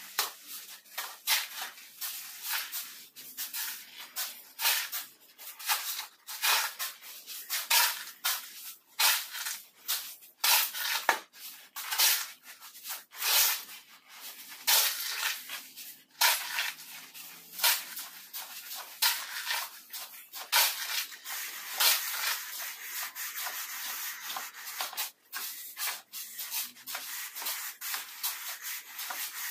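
Shovels scraping through damp sand-and-cement mortar as it is spread over a floor slab. The scrapes come in a quick run of short strokes, one or two a second, and blur into a more continuous rasp near the end.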